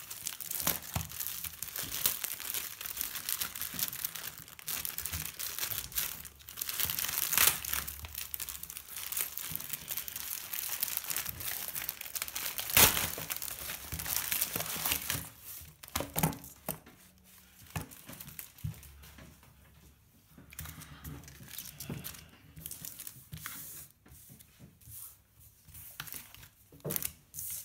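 Thin plastic wrapping on a magazine being torn open and crinkled by hand, with a sharp crack of plastic about halfway through. After that come sparser, quieter rustles and handling.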